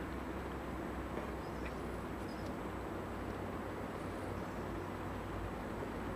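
Steady rush of a shallow stream flowing over rocks, with a low rumble underneath and a few faint, short high chirps.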